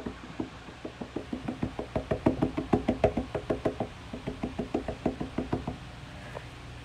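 Rapid knocking on a house door, several knocks a second in a long run that stops near the end.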